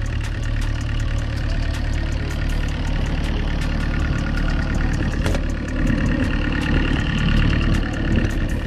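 Excavator's diesel engine running steadily, with a single knock about five seconds in.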